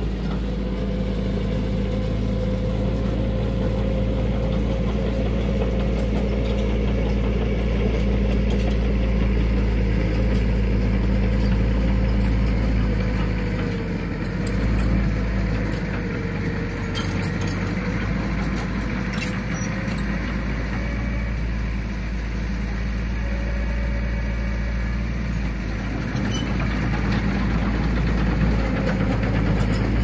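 Heavy earthmoving machinery's diesel engine running steadily with a deep hum, the note wavering slightly, and faint scattered clicks and clanks over it.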